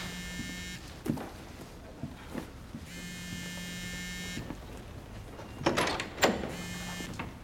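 Mobile phone buzzing on vibrate in three bursts, the longest about three seconds in. Scattered soft knocks, with a louder door knock and clatter about six seconds in.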